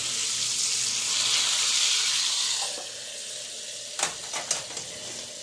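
Bacon sizzling hard in a hot skillet on high heat, the sizzle dropping to a quieter, muffled hiss about two and a half seconds in as the glass lid goes on the pan. A few sharp clicks follow about a second later.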